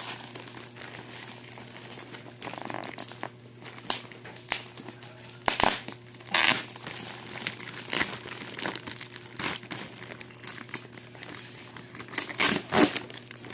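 Packaging being unwrapped by hand: irregular crinkling and tearing, with the loudest rips about five to six seconds in and near the end, over a faint steady low hum.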